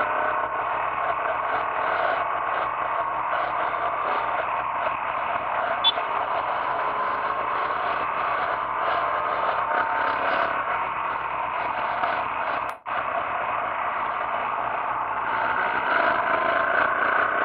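Adventure-touring motorcycle under way: a steady rush of wind and road noise with the engine's note rising and falling faintly beneath it, picked up by a camera mounted on the bike. The sound drops out for an instant about 13 seconds in.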